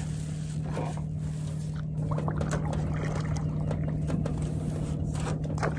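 Water splashing and dripping around a small jon boat as it is paddled, over a steady low hum, with a few light knocks about two seconds in and near the end.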